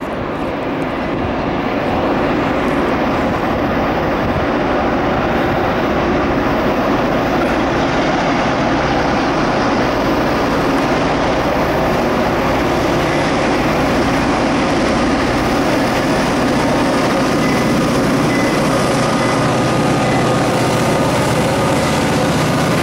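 Diesel freight locomotives working hard up a grade, led by an EMD GP38-2 with its 16-cylinder 645 engine, as they approach. The result is a loud, steady roar, with faint steady tones coming through near the end as the lead unit nears.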